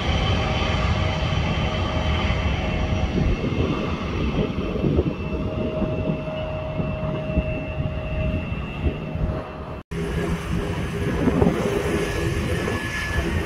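Taxiing jet airliners' engines running at low power: a steady rumble with a thin held whine. About ten seconds in the sound cuts off abruptly and resumes with a different texture.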